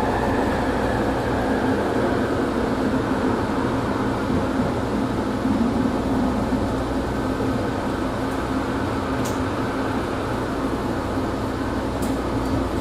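Steady cabin noise of a Bombardier ART linear-motor light-rail car: a constant rumble with a low hum, and a couple of faint high ticks.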